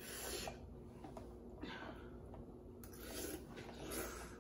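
Faint slurping of spicy noodles mixed with hissing breaths, in about four short bursts a second or so apart.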